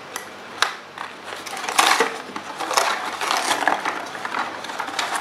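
Scissors cutting through a cardboard toy-box insert: a couple of sharp snips, then a long stretch of crackling and rustling as the cardboard and plastic packaging is cut and pulled apart.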